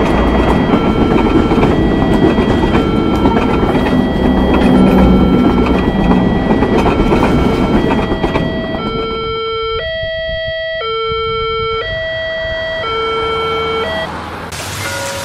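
Railroad crossing alarm ringing as an electronic two-tone bell that alternates about every 0.7 s, over the rumble and clatter of a passing freight train of tank wagons. The train noise fades about eight seconds in, leaving the alarm alone until it stops near the end, when a hiss of rain begins.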